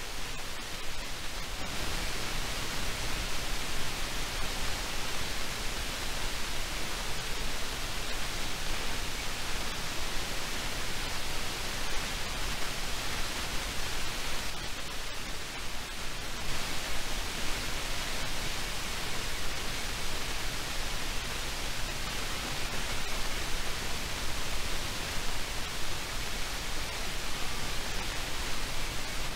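Steady, even hissing noise with a low rumble underneath and no distinct events.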